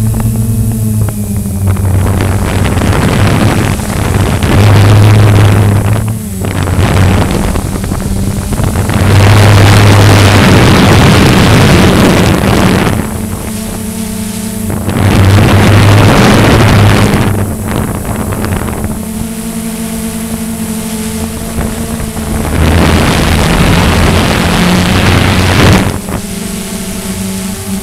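Walkera QR X350 quadcopter's brushless motors and propellers humming steadily in flight, heard through its onboard camera. Loud rushing wind noise on the microphone swells up several times and then drops back.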